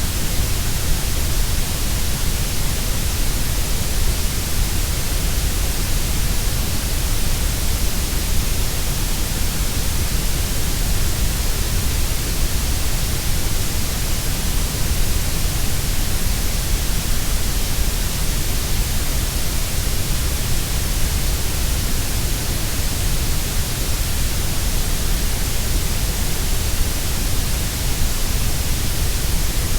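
Continuous synthetic grey noise: a steady, unchanging rush with a deep rumble and a bright hiss, the middle range softer than either.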